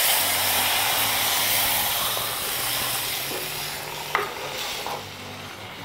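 Water poured into a hot clay pot of fried fish, salt and spices, hissing and sizzling as it hits the hot oil, loudest at first and dying down over the next few seconds. A short knock about four seconds in.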